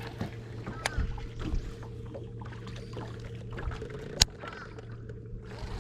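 Electric trolling motor running with a steady hum. A single sharp click about four seconds in is the loudest sound.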